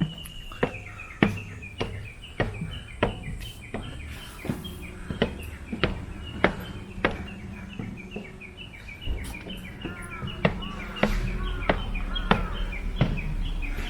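Footsteps of someone walking a forest trail at a steady pace, about three steps every two seconds. A bird calls throughout in a fast series of short high chirps, and other birdsong joins in the second half. A low rumble comes in about eleven seconds in.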